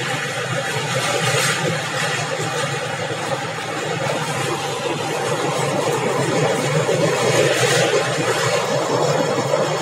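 Saraighat Express passenger train running across a steel truss bridge, heard from inside the coach: a steady rumble of wheels on rails.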